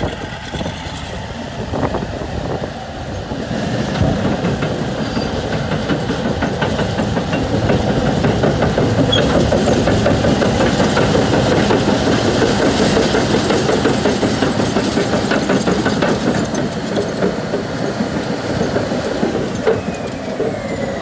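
Caterpillar D11R crawler dozer on the move, its Cat 3508B V8 diesel running under the rapid clanking clatter of its steel track chains. The clatter swells about four seconds in as the machine nears and eases off near the end.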